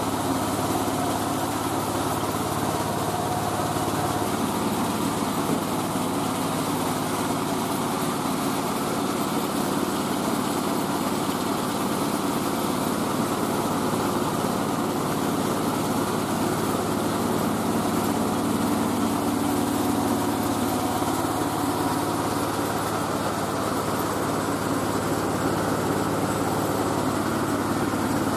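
Mobile rice-milling machine running steadily, its engine and milling mechanism giving an even, unchanging hum.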